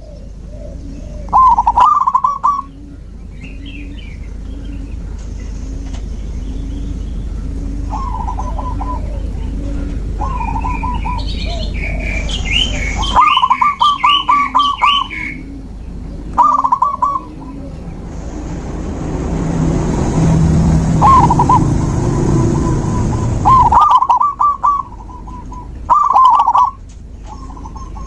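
Zebra doves cooing: short bursts of quick rattling notes repeat every couple of seconds over a soft, low, pulsing coo. Smaller birds chirp briefly near the middle, and a rushing noise swells and then cuts off about two-thirds of the way through.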